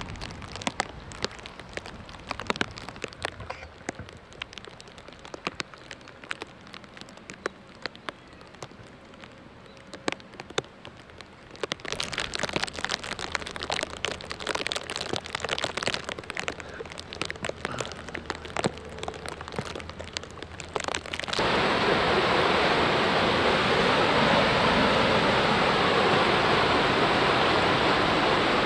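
Rain falling, with many close raindrops ticking on a surface, growing louder partway through. A little after two-thirds of the way in it gives way suddenly to a loud, steady rush of flowing floodwater.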